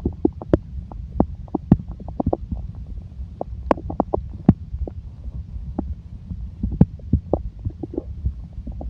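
Human stomach growling: a continuous low rumble with a quick, irregular run of gurgling pops and clicks, a few of them sharper and louder than the rest.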